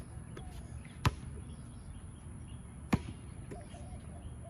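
A basketball bouncing off an outdoor hard court: two single sharp bounces, about two seconds apart.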